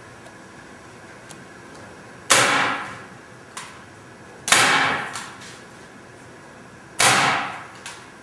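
Staple gun firing three staples through canvas into a wooden stretcher bar, each a sharp snap with a short ringing tail, about two and a half seconds apart.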